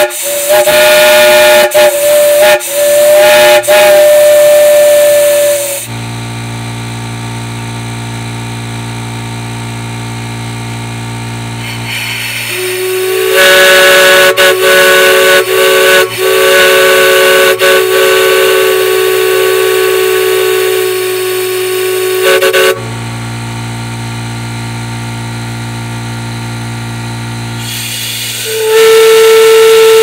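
Chime steam whistles blown on compressed air: three spells of loud blasts, each a chord of several steady tones, the first broken into short blasts, the second held for about ten seconds. Between the spells a steady low hum, the air compressor refilling the tank.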